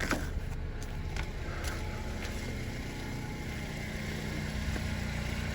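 2007 Honda Civic LX's 1.8-litre four-cylinder engine idling steadily, with a few faint clicks in the first second or two.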